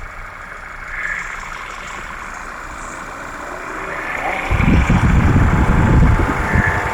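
The engine of a 2014 Audi Q3 idling steadily. About halfway through, a loud low rumble joins in for around two seconds.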